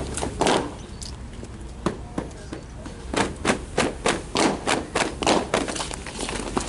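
Drill platoon's hard-soled shoes stamping on asphalt: a few scattered stamps, then from about three seconds in a quick, even run of about three to four strikes a second as the members move in step.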